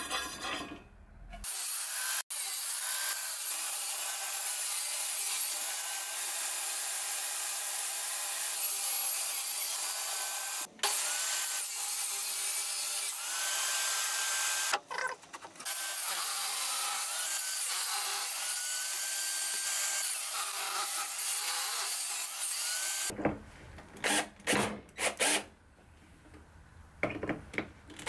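Table saw cutting wood boards in several stretches, its blade whine wavering as the wood feeds through. Near the end a cordless drill-driver drives screws into the wood in many short bursts.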